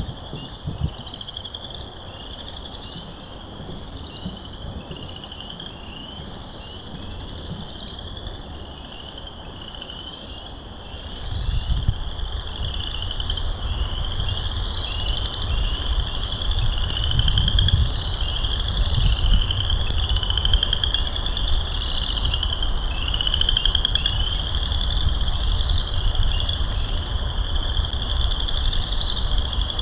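Frogs calling in a dense chorus of overlapping rising trills, repeated steadily. A low rumble joins about eleven seconds in.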